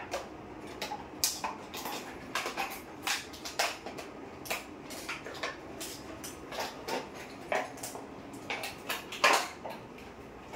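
A string of irregular sharp clicks and knocks, sometimes several a second, with a loudest knock near the end.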